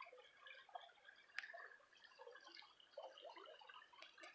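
Faint trickle and drip of creek water, with one small sharp click about a second and a half in.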